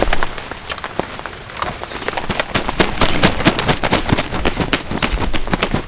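Quick, irregular thumping and rustling in grass: a downed wild turkey gobbler flopping and beating its wings on the ground, mixed with hurried footsteps.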